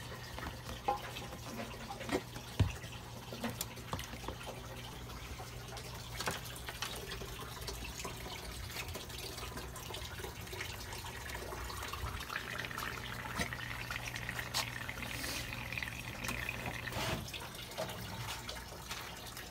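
Air bubbler bubbling into a plastic tote of water, a steady trickling and dripping over a steady low hum, with a few soft knocks and clicks, the strongest about two and a half seconds in.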